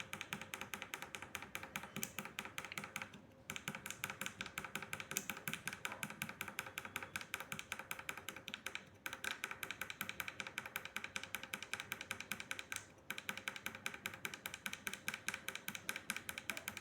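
A tactile micro switch (tact switch) clicking as its button is pressed rapidly and repeatedly by finger, several clicks a second in runs broken by a few short pauses. The switch is being worked after a spray of WD-40 to free its contacts of dust and oxidation.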